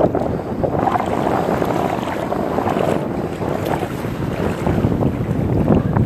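Wind buffeting the microphone: a loud, uneven rumble that swells and dips.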